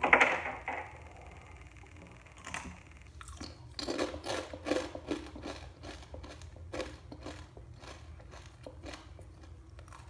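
Crisp fried achappam (Kerala rose cookie) snapping and crackling as it is broken in two by hand, then a long run of crunches, two to three a second, typical of the crunchy cookie being chewed.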